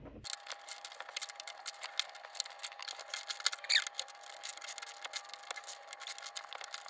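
Hand ratchet clicking in quick, uneven strokes as it drives a screw into old wood, with a short squeak about halfway through.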